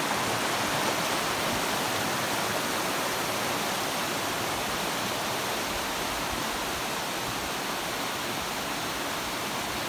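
Waterfall: water rushing steadily in an even, unbroken hiss.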